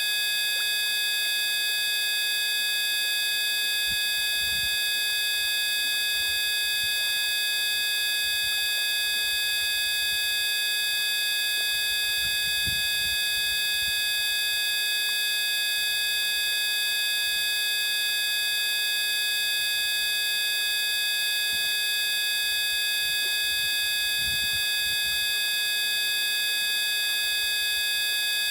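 A steady electronic drone of many pure tones sounding together, from mid to very high pitch, with no change in pitch or loudness: a synthesized tone track offered as sound therapy for a lingering cough. A few faint low rumbles sit under it.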